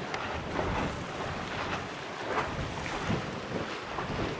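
Wind rushing over the microphone, an uneven noisy roar that swells and dips in gusts.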